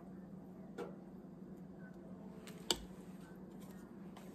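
A metal ladle and batter being handled at a foil loaf pan and mixing bowl: a few faint clicks, and one sharp knock of the ladle about two-thirds of the way through, over a steady low hum.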